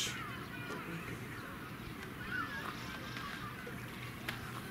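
Birds calling, many short chirps and whistles that rise and fall in pitch, over a steady low hum, with one sharp click near the end.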